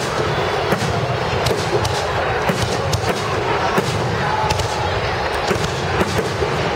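Fireworks display in full barrage: many sharp bangs in quick, irregular succession over a continuous crackle of bursting shells.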